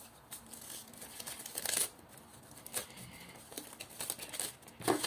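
A folded sheet of thin paper rustling and crinkling in irregular bursts as hands unfold it, with a sharper crackle near the end.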